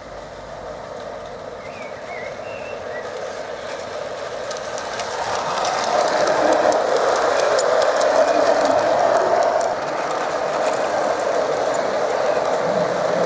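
Gauge 1 model goods train of loaded coal wagons rolling past on garden track: a steady rumble of wheels on rail with many small clicks from the wheels over the rail joints. It grows louder as the wagons approach and is loudest from about six seconds in as they pass close by, easing a little near the end.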